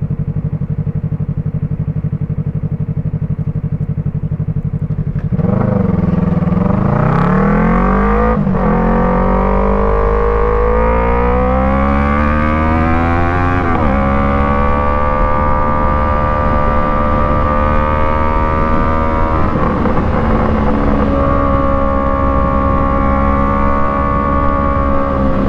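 Yamaha MT-03's 321 cc parallel-twin engine, through an aftermarket Arashi exhaust, running steadily at low revs. About five seconds in it gets louder and climbs in pitch, pulling up through the gears with two shifts, then settles into a steady cruise.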